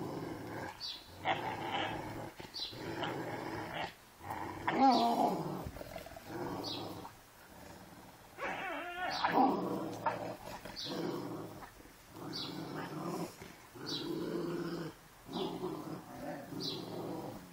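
Dogs growling in play during a tug of war, in repeated bouts of a second or two. There are louder, wavering cries about five and nine seconds in.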